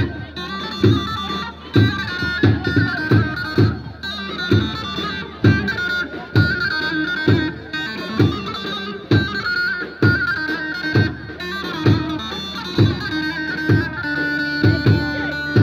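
Instrumental halay folk dance music: a reedy, sustained high melody line over a heavy, steady drum beat.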